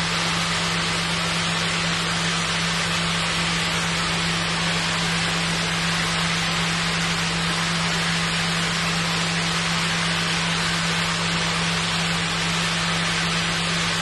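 Steady hiss of running or splashing water with a constant low hum underneath, unchanging throughout.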